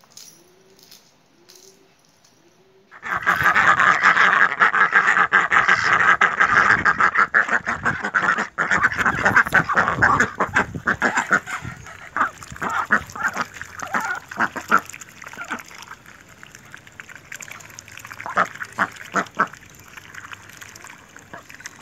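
Several white domestic ducks feeding noisily at a bowl of water and sweet corn: a dense run of rapid bill-dabbling and duck calls that starts suddenly about three seconds in. After about eleven seconds it thins into scattered separate sounds.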